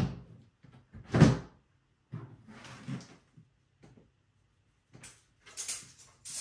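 Knocks and handling noises from a plastic IKEA Trones shoe cabinet being held and shifted against a wall: one loud knock about a second in, then softer scraping and rustling.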